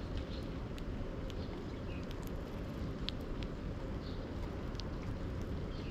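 Eurasian tree sparrows pecking seed off a wooden board: scattered short, sharp taps of their beaks, over a steady low rumble.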